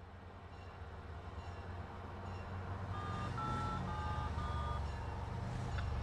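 Diesel locomotive rumbling as it approaches, growing steadily louder, with a quick series of four short high beeps about halfway through.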